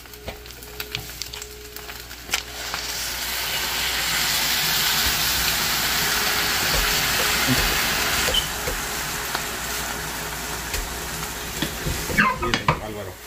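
Blended tomato-and-chile salsa poured into a hot pan of scrambled eggs, sizzling loudly as it hits the pan. The sizzle starts about two seconds in, swells, then slowly dies down.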